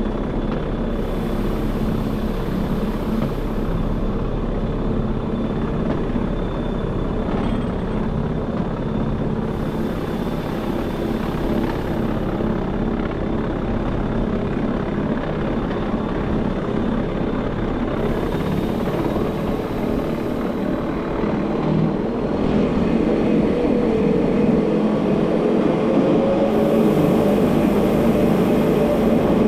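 Rochers-de-Naye cogwheel railcar running downhill, a steady mechanical drone of its motors and rack gearing with a faint high whine. About two-thirds of the way through it grows louder and a whine rises in pitch as the train enters a covered gallery.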